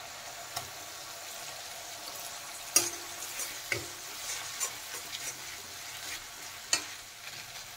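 Ginger-garlic paste and fried onions sizzling in mustard oil in a kadai, stirred with a metal spatula that knocks against the pan a few times.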